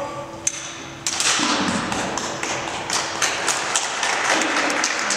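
A single sharp knock about half a second in, then audience applause, many hands clapping, starting about a second in and continuing.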